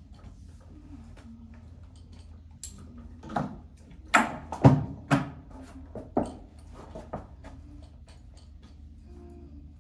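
Handling noise of a horse being bridled: a cluster of sharp knocks and clinks from tack and the horse, bunched in the middle, over a steady low hum.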